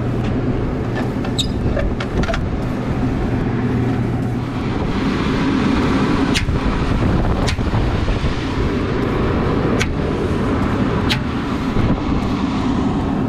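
Restaurant exhaust hood fan running steadily: a constant motor hum under rushing air. A few sharp clicks and taps stand out over it as a cover panel is put back.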